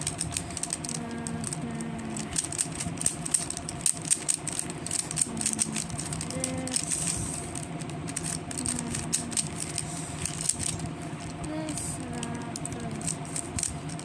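Plastic Rubik's cube being turned quickly by hand: a rapid, irregular run of clicks and clatter as the layers snap round.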